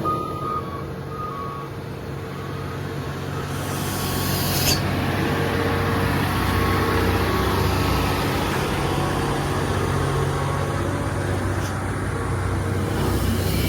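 Truck engine pulling under load on a climb: a steady low drone that grows louder over the first several seconds. There is a brief hiss about four seconds in.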